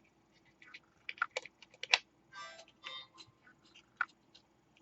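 Scattered light clicks and two brief scrapes as a panel on a brass-and-aluminium-tube hinge is handled and moved by hand.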